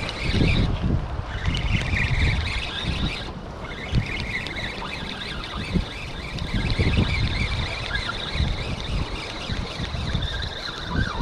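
Wind buffeting the microphone in gusts, a rumble that swells and fades, over a steady high hiss.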